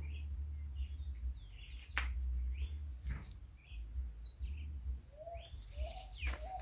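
Birds chirping, with a run of short rising calls about two a second near the end, over a low rumble and a couple of sharp clicks.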